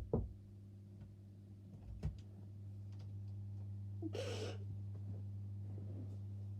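Steady low hum, with a few soft knocks near the start and around two seconds in, and one short breathy burst, a gasp or sharp breath, about four seconds in.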